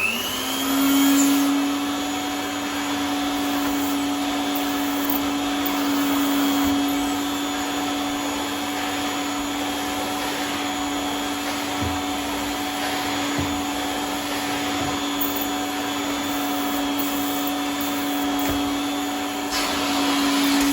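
1981 Durnbury industrial vacuum cleaner switched on: its motor winds up to speed in the first second, then runs at a steady pitch with a strong hum over a loud rushing of air through the hose and tubes.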